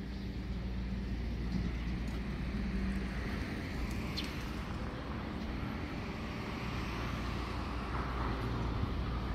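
Road traffic noise: vehicles passing on a nearby road, a steady rush with a low hum that swells and fades.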